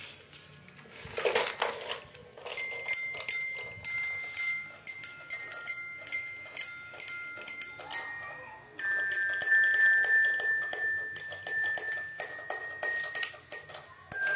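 Keys of a child's toy piano-xylophone pressed over and over: a quick string of high notes, several a second, starting about two and a half seconds in and getting louder about nine seconds in.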